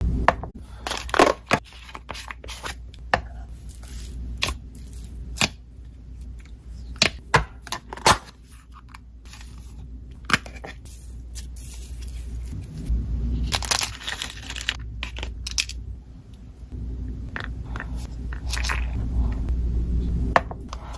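Slime being squeezed and worked by hand, giving irregular sharp pops and crackles of trapped air, with a steady low hum underneath.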